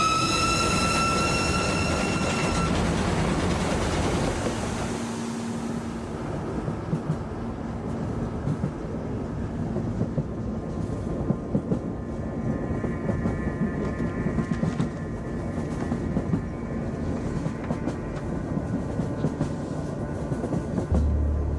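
A steam locomotive whistle blows for about two and a half seconds, followed by the steady rumble and clatter of the moving train. Faint sustained music tones join in about halfway through.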